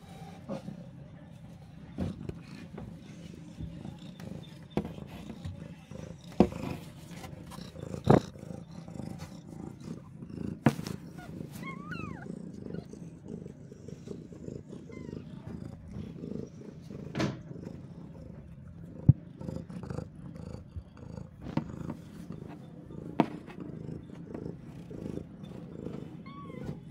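Mother cat purring steadily close by, with sharp knocks now and then and a few faint high squeaks about twelve seconds in.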